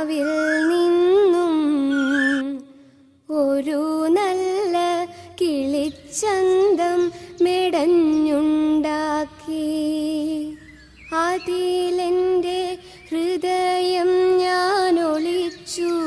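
A woman singing a slow, melodic Malayalam song, holding long, gently wavering notes in phrases with short breaks between them.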